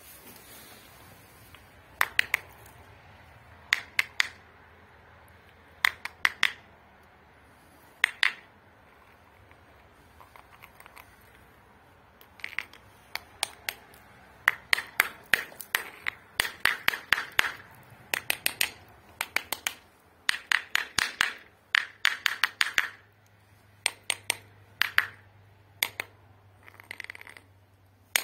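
Small hammer tapping on the stone blocks of a mortared wall, each tap a sharp ringing click. At first the taps come in pairs about every two seconds, then in quick runs of many taps through the second half.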